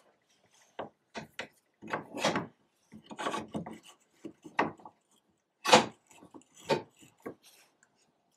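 Irregular metal-on-metal knocks, clicks and scrapes as a turning gouge held in a sharpening jig is handled and seated on the bench grinder's jig arm, the loudest knock about halfway through. The grinder is not running.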